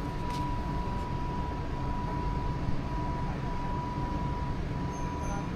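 Steady low mechanical hum with a thin, steady high tone running through it.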